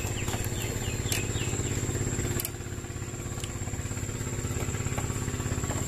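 A small engine running steadily with a fast, even throb, keeping a constant pitch. A short run of high chirps sounds in the first second.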